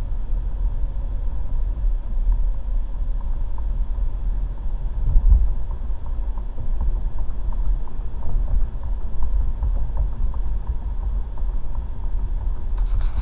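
Car driving along a road, heard from inside the cabin through a dashcam's microphone: a steady low rumble of tyres, engine and road, with a brief louder swell about five seconds in.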